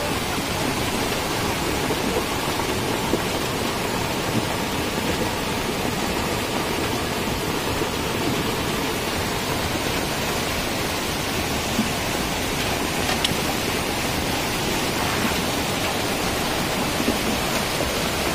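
A muddy, rain-swollen stream in flood rushing past, a steady loud wash of water noise.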